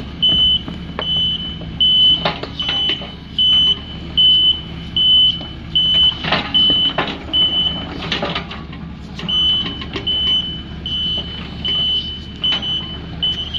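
Excavator travel alarm beeping steadily, about one and a half beeps a second, over the diesel engine running as the machine tracks along. A few loud knocks come from the machine as it moves on its split track.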